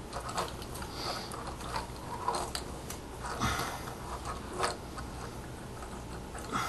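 Plastic Transformers action figure being handled and reconfigured: scattered clicks and small rattles as its parts are moved and pressed into place, about half a dozen sharper clicks among them.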